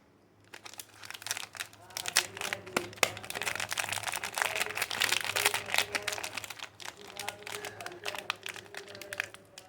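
Soap bar wrappers being crinkled and unwrapped by hand, a dense crackling with sharp clicks that starts about half a second in.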